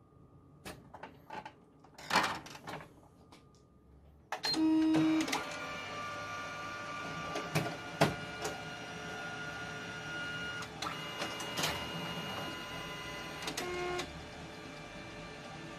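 Canon multifunction copier making a copy. A few clicks and knocks come first. About four seconds in there is a short steady tone, and the machine starts running with several steady whirring tones and sharp clicks for about ten seconds. Near the end it settles to a quieter steady hum.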